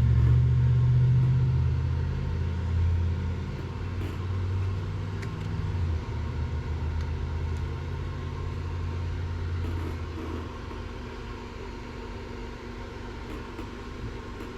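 A low engine rumble, like a motor vehicle, that is loudest at first and fades away over about ten seconds.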